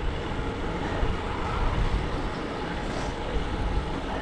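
Steady rush of wind and road noise from riding a road bicycle at speed, heard on the rider's own camera microphone.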